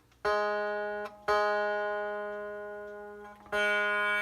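A tanpura string, with a cotton thread set under it on the jawari bridge, plucked three times. Each note rings on with a bright spread of buzzing overtones as the thread position for the jawari is tested.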